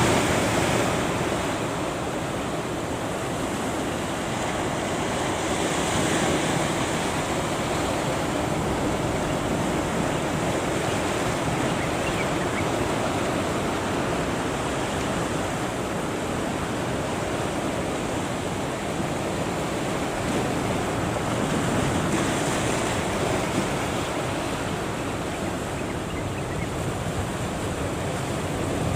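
Heavy surf breaking and washing at a river-mouth sea entrance, a continuous roar of water that swells now and then, with wind on the microphone.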